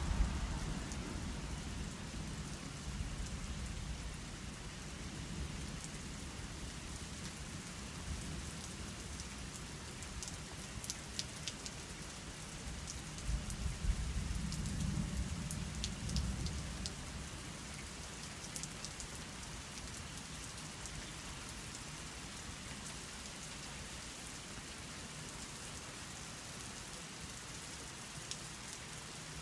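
Steady spring rain falling, with scattered sharp drip and patter ticks. A low rumble swells and fades about halfway through.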